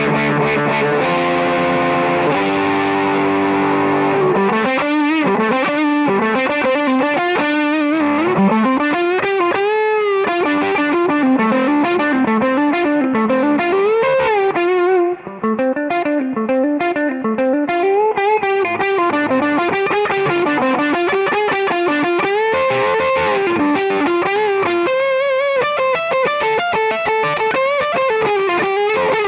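Electric guitar through the Earthquaker Devices Zap Machine, a germanium/silicon hybrid fuzz pedal, played through a tube amp. It opens with held fuzzed chords, then single notes slide up and down in pitch again and again.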